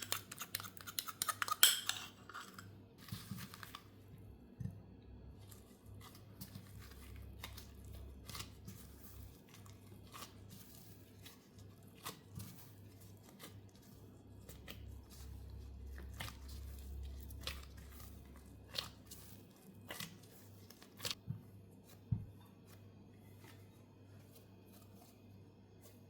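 Kitchen utensil clattering against a dish in a rapid run of clinks for the first two seconds, then only occasional soft clicks and rustles of hand work over a faint low hum.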